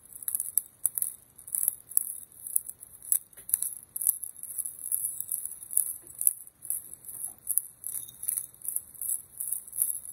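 Great Value twist-top black pepper grinder being turned by hand: a quick run of dry, crunching clicks in short spells, coming back every half second or so as it grinds peppercorns.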